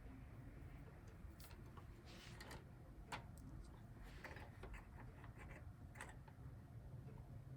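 Faint, scattered clicks and taps of a hard drive and its cables being handled and fitted into a desktop computer case, over near silence.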